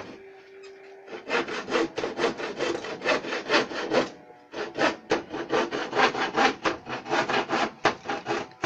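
Hand saw cutting through a wooden board in steady back-and-forth strokes, about three a second. The sawing starts about a second in and pauses briefly near the middle.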